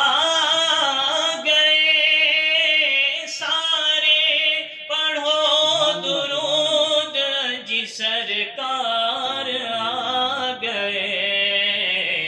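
A man singing a naat solo through a headset microphone, drawing the line out in long, wavering held notes without clear words, with short breaths between phrases.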